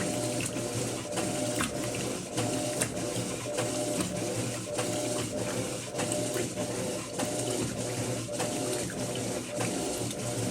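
Electrolux LF10 top-load washing machine agitating a load of bedding: a steady motor hum with regular mechanical clicks, about twice a second, as the wash action works the load.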